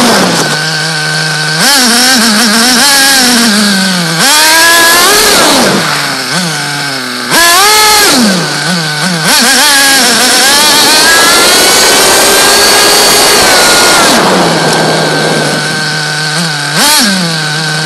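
Small nitro (glow-fuel) engine of a radio-controlled car, idling, then revving in several sharp bursts. About nine seconds in it holds a long high-revving run whose pitch climbs for about five seconds. It then drops back to idle, with one short blip near the end.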